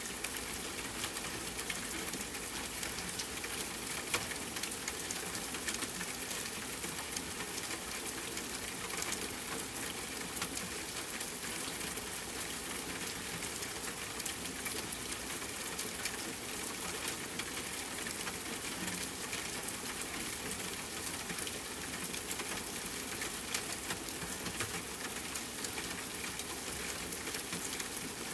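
Steady rain falling: an even hiss with the ticks of individual drops landing throughout.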